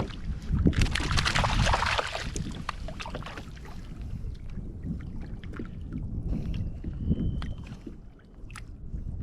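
Outdoor noise around a small fishing boat: a constant low rumble of wind on the microphone and water against the hull. A loud stretch of hissing noise starts about half a second in and lasts about three seconds, followed by scattered light knocks and clicks of gear being handled.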